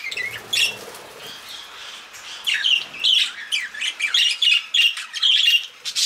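A flock of budgerigars chattering in many short, high chirps and squawks. The chatter thins out for about a second after the first second, then picks up again, busy and overlapping, from about two and a half seconds in.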